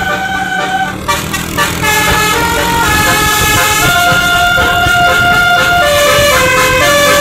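Basuri telolet musical horn on a tour bus playing a tune: a string of held, steady notes stepping up and down in pitch, with a short break about a second in, over the low rumble of the bus and traffic.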